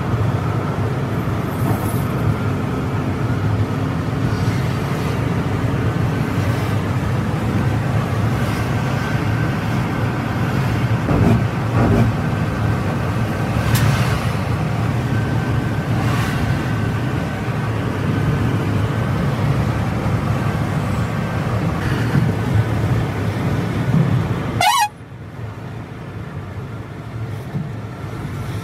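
Steady rumble of a coach's engine and tyres at highway speed, heard from on board. Near the end the rumble drops off suddenly and a short, wavering horn toot sounds.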